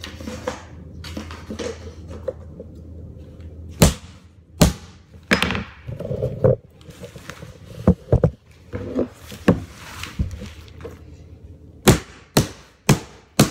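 Claw hammer driving the nails of wooden carpet tack strips into a hardwood floor: single sharp strikes spaced a second or more apart, then a quicker run of about two strikes a second near the end.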